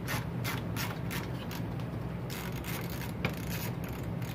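A screwdriver backing out screws on a string trimmer's plastic engine housing, with short clicks repeating about three times a second, as a ratcheting tool makes.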